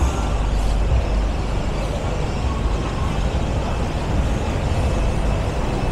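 Steady road-traffic noise with a heavy low rumble.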